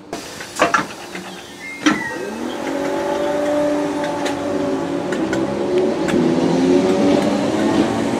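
Merseyrail Class 507/508 electric multiple unit pulling away from the platform. A few sharp clunks in the first two seconds, as the doors close, are followed by the whine of the traction motors, rising in pitch and growing louder as the train accelerates.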